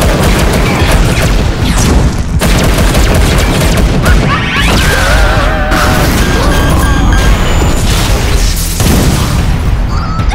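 Animated-cartoon action soundtrack: music under a dense run of sound-effect booms and crashes, with a warbling electronic tone about five seconds in.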